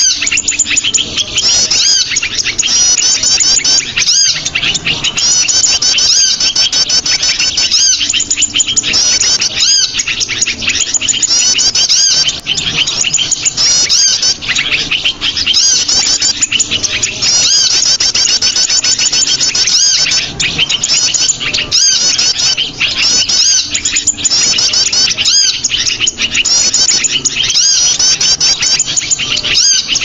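Bird-lure recording of small songbirds: a loud, nonstop chatter of high-pitched rapid chirps and trills from many small birds, played to draw small birds in.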